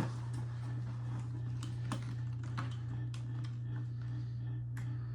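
Light scattered clicks and taps of packaging being handled while unboxing a desktop PC's accessories, over a steady low hum.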